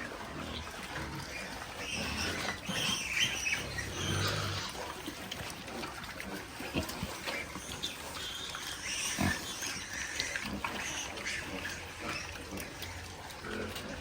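Pigs vocalising, with short high-pitched squeals scattered throughout over low grunting.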